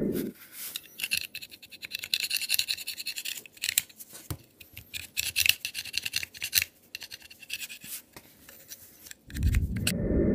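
Small knife blade scraping the end of an ignition coil's rubber boot in quick, rasping strokes, in two spells with scattered clicks: cleaning the coil as part of its repair. A low rumble is heard at the start and again near the end.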